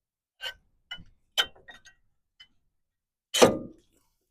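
Brake caliper hardware being handled: a string of light metallic clicks and clinks, then a louder metal knock about three and a half seconds in.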